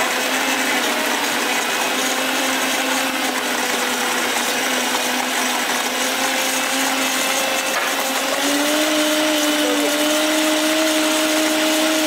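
Countertop blender running steadily, blending mixed fresh fruit into juice. About eight seconds in, its motor tone steps up slightly in pitch and gets a little louder.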